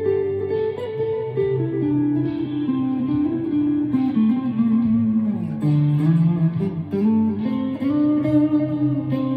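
Chapman ML3 Pro Traditional electric guitar with Seymour Duncan Hot tele pickups, played as a slow ambient melody of sustained notes ringing into each other. The line steps down in pitch to a low note about five seconds in, then climbs back up.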